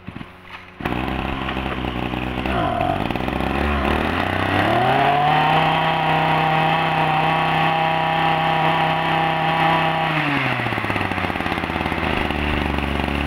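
Ryobi 26 cc two-stroke brush cutter engine running. It catches under a second in and idles, blips once, then is revved up and held at high speed for about five seconds before the throttle is let off and it settles back to idle.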